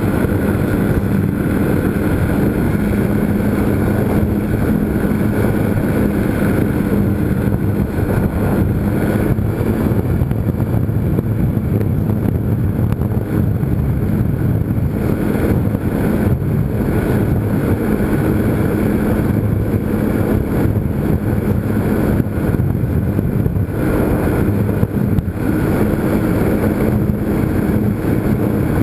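Electric motor and propeller of a GWS Slow Stick RC airplane droning steadily in flight, recorded by the camera on board, with the rush of air over the plane.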